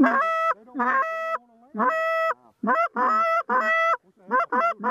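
Goose honking: a string of two-note honks, each breaking from a low note up to a higher held note, coming faster near the end.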